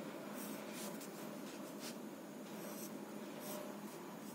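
Graphite sketch pencil stroking across drawing paper: a few separate, light scratching strokes.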